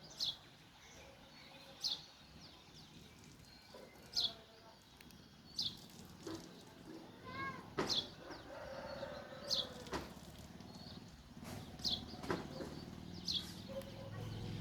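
Sparrow chirping: a single short chirp, falling in pitch, repeated eight times about every one and a half to two seconds, with a few fainter bird calls between.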